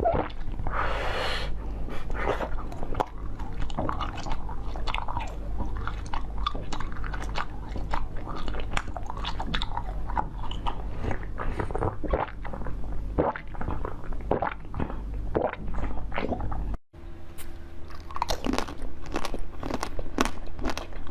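A person biting and chewing crunchy food close to the microphone: a dense run of crisp crunches and mouth clicks, with a steady low hum underneath and a brief break about 17 seconds in.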